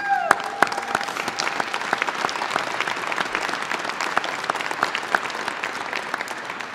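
Audience applauding: a dense patter of many hands clapping that slowly dies down.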